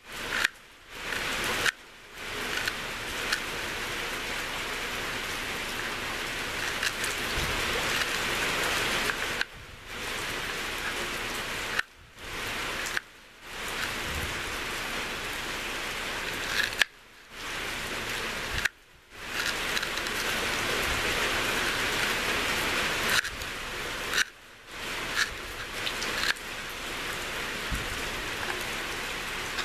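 A steady, even hiss like rain, cut off briefly to near silence several times, with a few faint taps.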